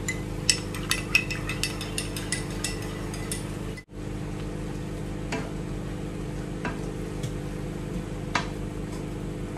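A spoon clinking rapidly against a cup as cornflour slurry is stirred. After a brief break, a wooden spatula stirs and taps beef and onions in a sizzling nonstick pan as the slurry goes in, over a steady low hum.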